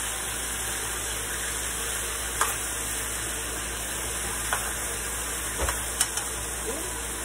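Chicken pieces sizzling as they brown in a frying pan, with a few sharp clinks of a metal spoon against the pan and the steel pot as the pieces are turned.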